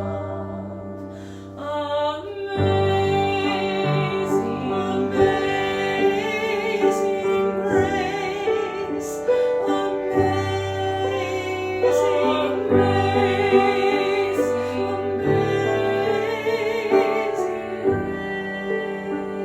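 Women singing a sacred song arrangement with vibrato, accompanied by piano; after a brief lull about two seconds in, the voices and piano come in fuller.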